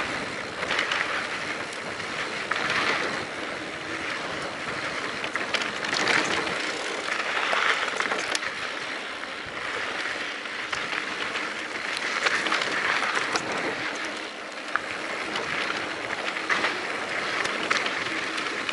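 Mountain bike rolling down a dry dirt singletrack: a continuous hiss of tyres on dirt and loose rock that swells and fades, with scattered small clicks and rattles from the bike.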